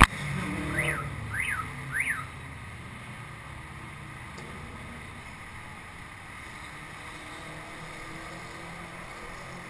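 Three quick whistle-like tones, each rising and falling, in the first two seconds, then a steady low rumble of wind and road noise while riding a bicycle along a city street.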